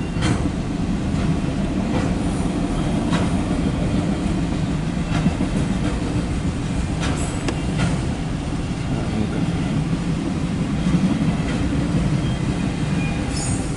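Loaded autorack freight cars rolling past a grade crossing: a steady rumble with sharp wheel clicks at irregular intervals, heard from inside a car.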